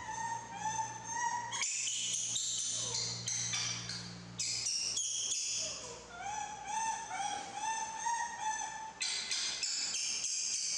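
Young macaque monkeys making long, wavering, high-pitched whimpering calls, one after another with short breaks between them.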